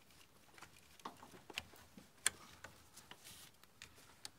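Irregular light clicks and taps, the sharpest about two seconds in, from a hose being fished by hand between the plastic intake parts in an engine bay.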